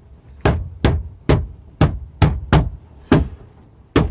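About eight sharp clicks, roughly two a second and a little uneven, from the truck's dash controls being worked while the freshly cleaned dimmer switch is tested.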